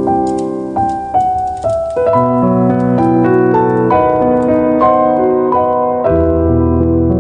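Calm piano music, with held notes and chords changing every second or so.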